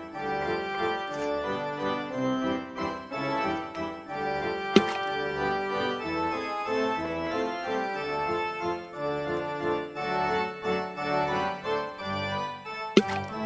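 Background music on an organ-like electronic keyboard, a continuous note-by-note tune. A brief sharp sound cuts in about five seconds in, and another near the end.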